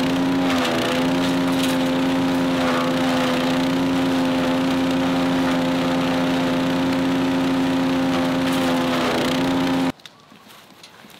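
Gas-engined DR Power wood chipper running steadily while shredding coconut husks into fiber, the engine's steady hum under a rushing chipping noise. Its pitch dips briefly near the start and near the end, and the sound cuts off suddenly near the end.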